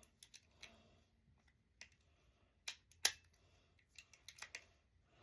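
Taurus .38 Special revolver being handled: a series of sharp metallic clicks from its action, irregularly spaced, the loudest about three seconds in.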